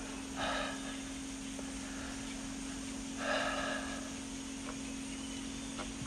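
A man breathing out hard twice, about three seconds apart, each a short breathy huff. A steady low hum runs underneath.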